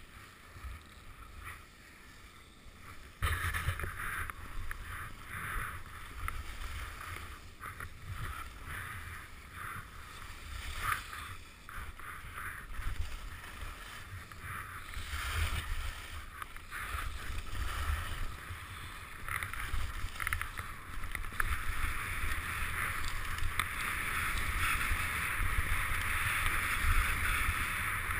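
Skis scraping and carving over packed snow at speed, with wind rumbling on the microphone. The sound picks up sharply about three seconds in and grows louder near the end.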